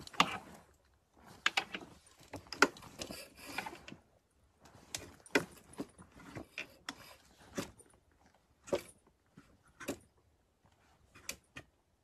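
Clothes hangers clicking against a clothes rail and fabric rustling as garments are pulled and pushed along the rack: an irregular run of sharp clicks, denser in the first few seconds and sparser later.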